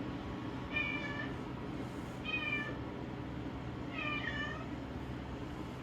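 A domestic cat meowing three times, short high calls about a second and a half apart, the last one a little longer and falling in pitch.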